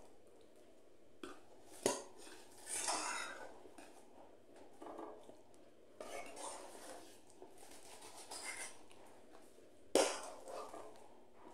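Metal spoon scraping and clinking against a stainless steel bowl and pot as thick curry is ladled across, with a sharp clink about two seconds in and a louder one near the end.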